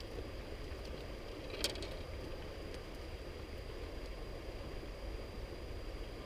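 River current running steadily, with a low wind rumble on the microphone and one sharp click about a second and a half in.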